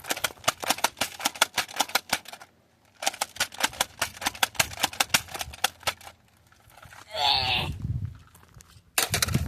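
Nerf blaster firing foam darts in rapid runs of sharp clicks, about seven a second, with a short pause between runs. A brief voice-like sound falls in pitch about seven seconds in.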